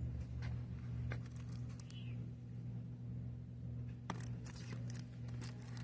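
Quiet shop room tone: a steady low hum with a few faint clicks and taps, the clearest about four seconds in.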